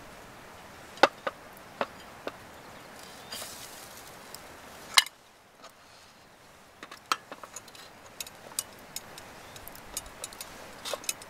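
Scattered metal clicks and knocks of a hot sandwich maker being handled, opened and reloaded with bread, with one louder clack about five seconds in and quick light ticks toward the end.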